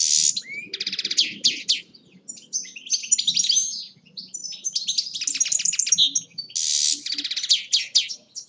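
European goldfinch singing: rapid, high twittering phrases mixed with fast buzzy trills, broken by short pauses every couple of seconds.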